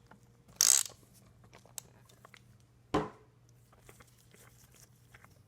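Filter wrench and rag being worked on an outboard's oil filter: a short scraping rasp about half a second in, a sharp knock near three seconds, and small handling clicks between.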